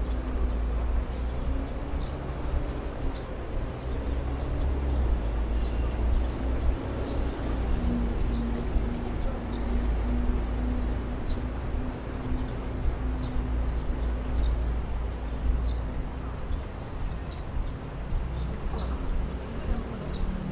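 Outdoor city ambience: a steady low rumble of traffic, with an engine hum rising out of it in the middle and short high ticks scattered throughout.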